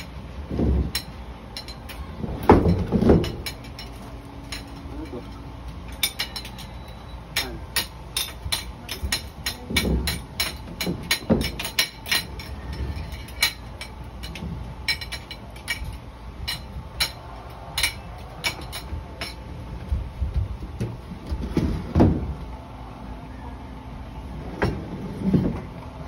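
A spoon clinking and tapping on ceramic plates and a glass tabletop: many quick, sharp clicks in irregular runs, with a few louder thumps and short voice sounds in between.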